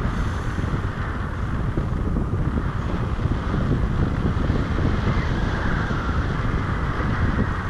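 Wind buffeting and rushing over the camera microphone, a steady heavy rumble from the airflow of a paraglider in flight.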